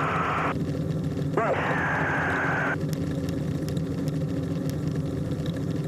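Steady drone of a small aircraft's engine heard from inside the cabin. Two short bursts of hiss come in the first three seconds, the second opening with a brief trace of voice.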